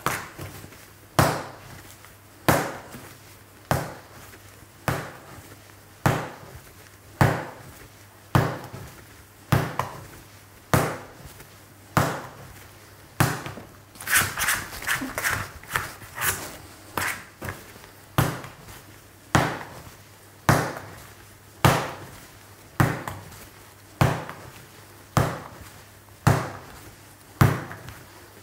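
Wet bread dough being slapped onto a wooden worktop and folded over in the hand-mixing slap-and-fold technique. The slaps come in a steady rhythm, about one every second and a bit, with a brief flurry of lighter sounds about halfway through. The dough is firming up and becoming less sticky with each slap.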